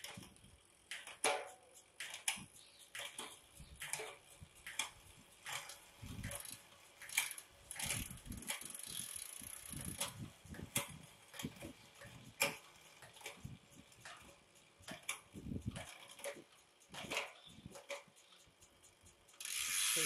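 Bicycle drivetrain turning on a workstand: LTWOO RX rear derailleur, chain and Sunshine 11-32 cassette. It gives a run of light, irregular clicks and ticks while the rear derailleur is being adjusted.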